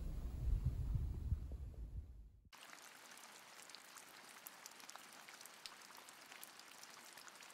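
A Siamese cat's low throbbing purr for about two and a half seconds, then an abrupt cut to faint rain pattering on window glass, with scattered drops ticking.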